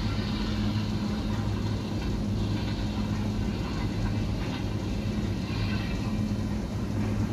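Steady low machine hum that holds at one level, with a deep even drone.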